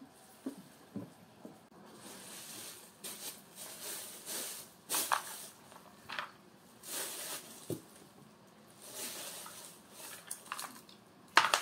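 Thin plastic bag rustling and crinkling in bursts as it is handled, with a few short knocks; the sharpest, loudest noise comes near the end.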